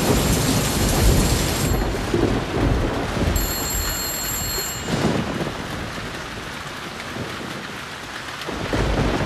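Heavy rain falling steadily, with thunder rumbling several times: near the start, about halfway and again near the end.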